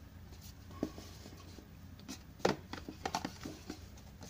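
Cardboard retail box of a Garmin Vivoactive HR watch being opened by hand, its lid lifted off the inner tray: a handful of short scrapes, taps and knocks of cardboard, the loudest about two and a half seconds in.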